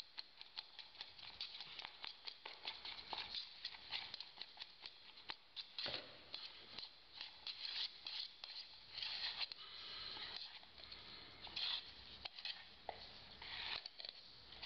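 Metal spatula scraping and tapping against the inside of a plastic cup while hand-stirring a geopolymer binder and mica filler paste: an irregular run of soft scrapes and clicks.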